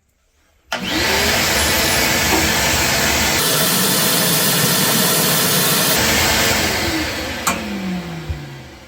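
Shop vac switched on, its motor spinning up with a rising pitch to a loud steady whine and rush of air, used to suck up water left standing in the front-load washer. About seven seconds in it is switched off and winds down with a falling pitch.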